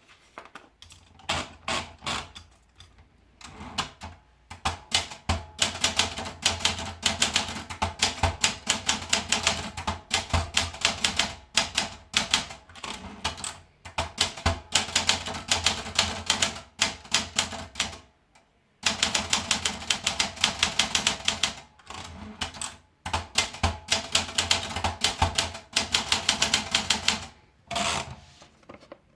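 Olympia Traveller portable manual typewriter being typed on: rapid runs of sharp key and typebar clacks in bursts of several seconds, broken by short pauses.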